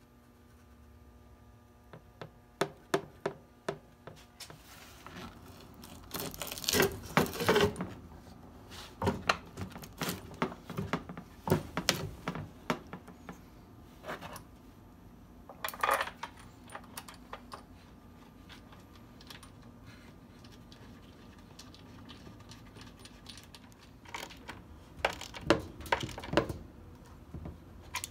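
Scattered metal clinks, taps and knocks of bolts, a wrench and pump parts handled on a workbench during reassembly of a pool pump, in irregular flurries with quieter gaps, busiest in the first half and again near the end.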